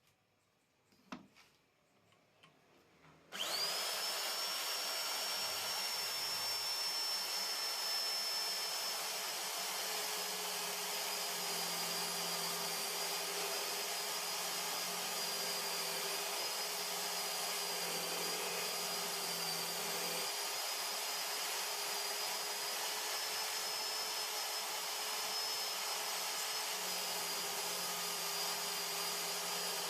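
Electric drill driving a homemade cylindrical drum sander, switched on about three seconds in after a couple of faint clicks, then running steadily with a high whine that climbs as it spins up and then holds.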